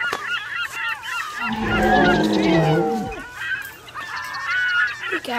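A flock of birds calling over and over in short honking calls. A deeper, drawn-out sound, falling in pitch, comes in about two seconds in.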